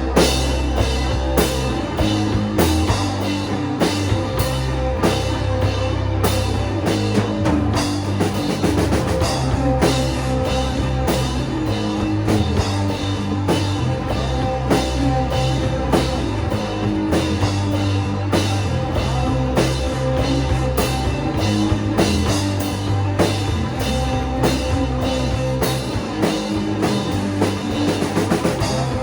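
Shoegaze rock music played by a full band: drum kit keeping a steady beat under guitars, with the bass line moving between low notes.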